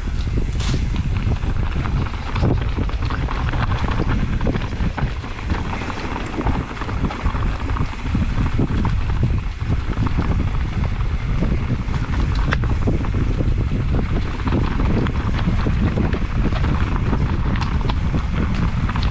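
Wind buffeting an action camera's microphone at speed on a mountain-bike descent, with the bike rattling over rough trail in many small clicks and knocks.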